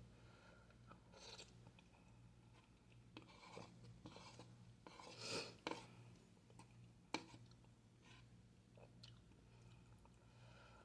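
Faint sounds of a person eating: chewing and small scattered clicks and rustles, with one sharper click about seven seconds in, over a low steady hum.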